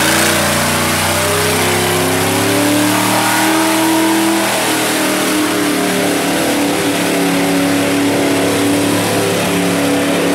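Lifted mud truck's engine under hard throttle as the truck drives through a mud pit, its pitch climbing over the first few seconds and then holding high and steady.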